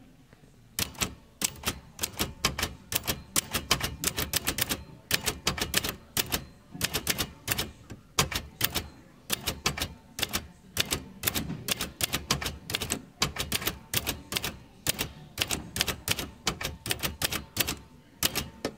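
Vintage manual typewriter being typed on: rapid clatter of key strikes in bursts of several keystrokes with short pauses between words, starting about a second in.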